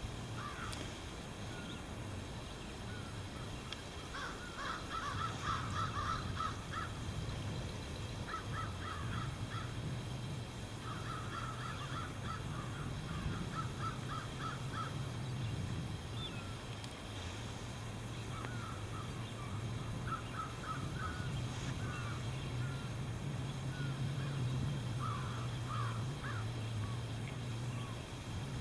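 Birds calling in several bursts of quickly repeated short notes, over a steady low hum.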